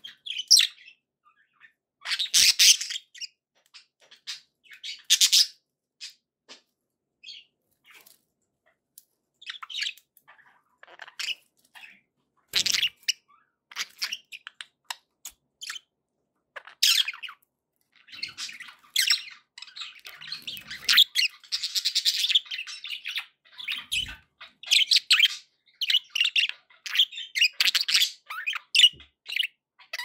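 Several pet budgerigars chirping and chattering in short bursts. The chatter is sparse at first and becomes busier and nearly continuous in the second half.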